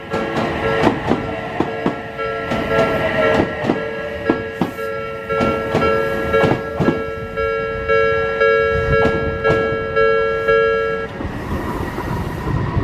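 An Odakyu Line train runs over a level crossing, its wheels clacking in a regular rhythm over the rail joints. A level-crossing warning bell rings steadily with pulsing tones and falls silent suddenly about two seconds before the end.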